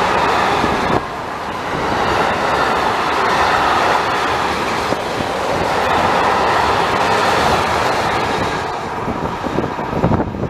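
Freight train of pressurised gas tank wagons rolling past: a steady rumble of wheels on rail that thins out near the end as the last wagons go by.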